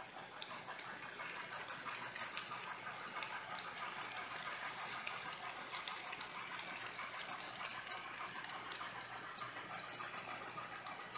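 N scale model train's passenger cars rolling over the track: a steady faint rolling noise with many small, irregular clicks from the wheels on the rails and rail joints.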